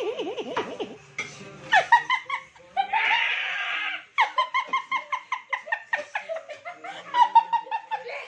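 High-pitched laughing in quick repeated bursts, a giggling run of ha-ha syllables that is strongest in the second half.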